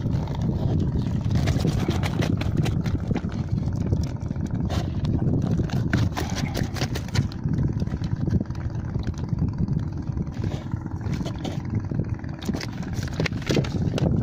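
Gill net being hauled in by hand over the side of a wooden boat and a fish worked free of the mesh: rustling, clicks and knocks over a steady low rumble.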